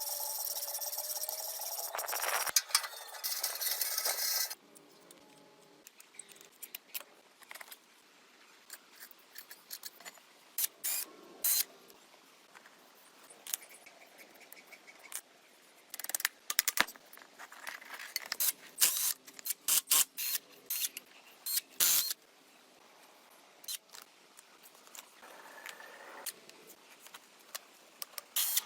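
A steady hissing noise for about the first four seconds stops abruptly. Then come scattered clicks, clinks and scrapes of hand tools and small metal parts being handled, at irregular intervals.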